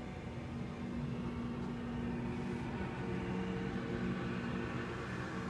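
Bobcat skid-steer loader's engine running steadily while it pushes snow, its hum shifting in pitch about halfway through, heard through a window.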